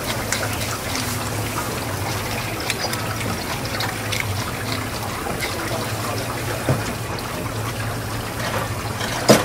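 Tap water running over a parrotfish on a cutting board while a stiff brush scrubs off its scales, with scattered scraping clicks over a steady low hum. A sharp knock sounds just before the end.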